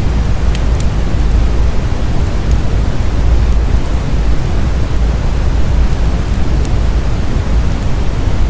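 Birch logs burning in a wood fire, with a steady low rush of flame and a few sharp crackles.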